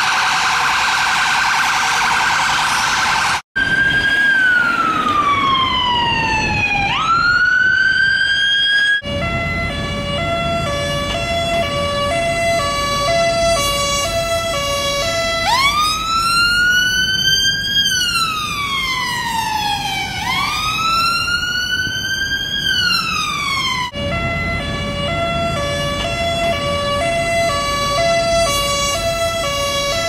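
UK ambulance sirens, several recordings cut together: a fast yelp, then a slow wail that falls and sweeps back up, then the two-tone hi-lo alternating between two notes. Slow wail cycles follow about halfway through, and the two-tone returns near the end.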